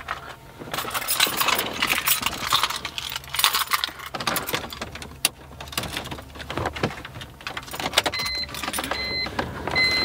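Car keys jangling and clicking as the key is put into and turned in the ignition of a BMW E46 330xi. About eight seconds in, a short electronic beep starts repeating, just under a second apart.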